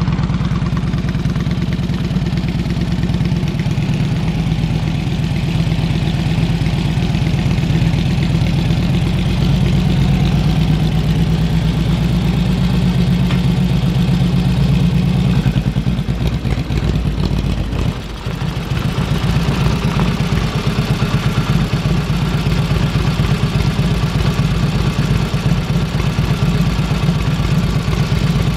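1946 Indian Chief's flathead V-twin, warmed up, running steadily at low revs, with a brief dip in level about eighteen seconds in.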